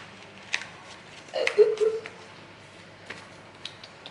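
Light clicks and taps from a watch and its cards being handled, with one brief louder sound about a second and a half in.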